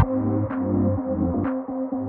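Electronic background music that turns muffled right at the start, its highs cut away, leaving steady low synth notes and a brief sweep about once a second.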